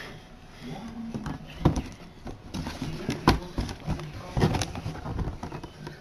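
A cardboard box being handled and opened: rough handling noise with several sharp knocks, the loudest about three seconds in.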